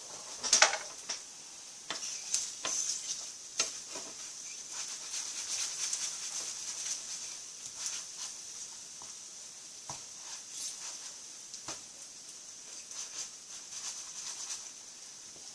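Egg frying in oil in a frying pan, sizzling steadily, with irregular ticks and scrapes of a utensil against the pan as the fried egg is cut into pieces.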